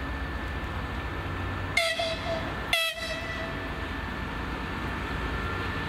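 TEP70BS diesel passenger locomotive horn giving two short blasts about a second apart, a little under two seconds in. Under the blasts runs the steady low rumble of the diesel engines.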